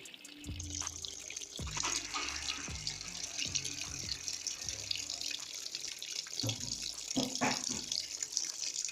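Water running into the wash tub of an LG twin-tub washing machine as it fills, a steady hiss that starts about half a second in.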